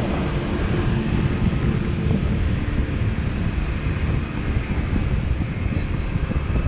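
Wind buffeting the GoPro's microphone on a moving boat: a loud, steady rumbling rush that flutters in strength.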